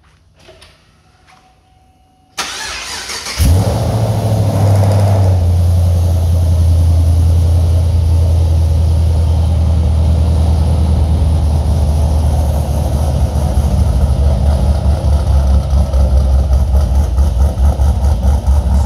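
Supercharged 6.2-litre V8 of a 2011 Chevrolet Camaro SS, fitted with a performance cam, X-Force headers and no catalytic converters, cranking on the starter for about a second, catching with a brief rev flare, then settling into a loud idle that turns uneven and choppy.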